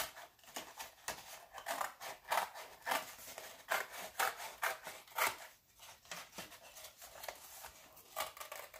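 Scissors snipping through a paper plate in a run of short, irregular cuts, about two or three a second.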